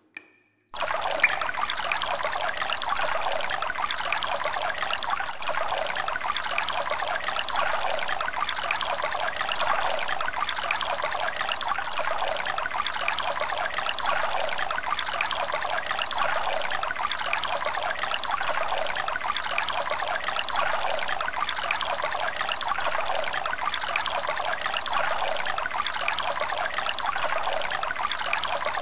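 Water pouring in a steady, trickling stream, beginning abruptly just under a second in, with a short sharp click just after it starts.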